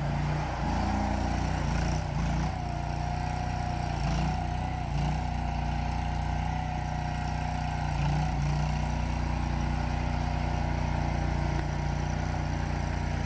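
Gasoline engine of an Agrotk CRT23 tracked skid steer loader running steadily, with a steady whine above it. The engine note shifts briefly several times as the machine works.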